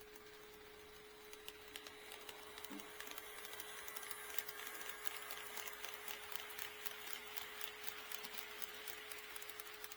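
HO-scale model train running on sectional track, its wheels clicking rapidly over the rail joints and getting louder from about a second and a half in as it approaches. A steady faint tone runs underneath.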